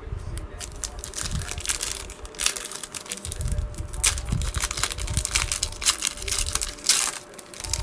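Plastic-foil trading card pack wrapper crinkling and crackling in the hands as it is torn open, with cards shuffled and low handling thumps.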